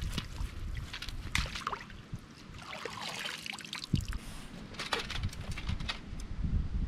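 Water splashing and sloshing, with irregular knocks and rustles.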